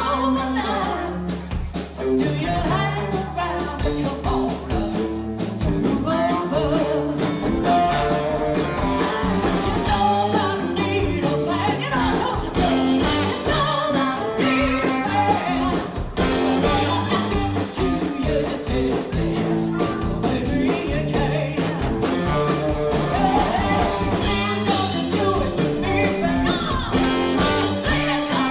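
Live rock band playing, a woman singing lead over electric guitar, bass guitar, keyboard and drums.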